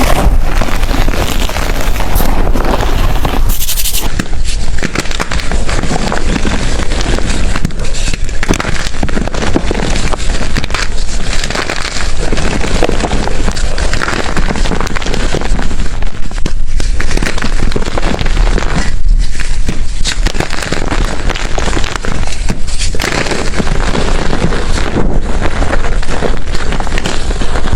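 Blocks of gym chalk being crushed and crumbled by hand: a loud, dense crackling crunch with short lulls every few seconds.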